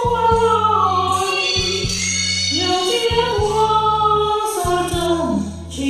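Karaoke recording: a singer holds long, slightly wavering notes over a backing track with a steady repeating bass line.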